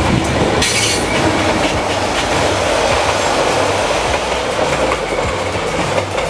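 Vietnam Railways passenger train led by a D19E diesel locomotive passing close by, its wheels running over the rails with a steady loud rumble. There is a brief rush of higher sound about a second in.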